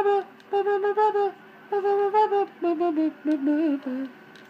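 A voice humming a short wordless tune: two held phrases, then a run of short notes stepping down in pitch.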